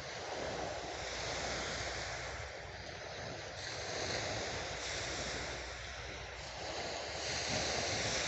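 Waves washing on a shoreline, the surf sound swelling and easing every few seconds, with wind rumbling on the microphone.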